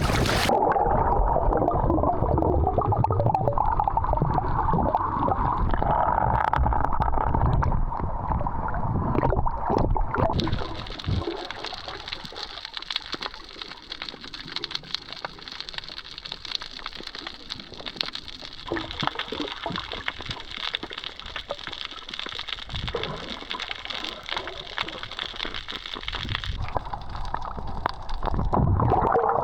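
Rough sea water sloshing and gurgling, muffled as if heard with the microphone underwater. About ten seconds in it turns quieter, leaving a steady hiss, and it gets louder again near the end.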